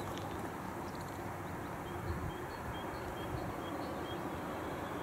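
A small bird repeating a short high chirp a little over twice a second from about two seconds in, over a steady low background rumble.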